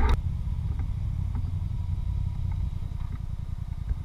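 ATV engine running steadily at low revs with an even low chugging, heard from on board the quad.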